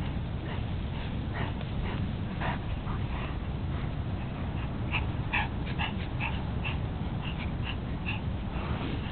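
Dogs playing, giving short high yips and whines, with a quick run of yips about five to eight seconds in.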